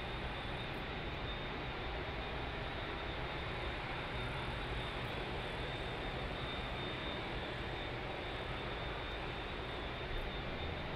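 Jet airliner engines, a steady, continuous roar with no clear rise or fall.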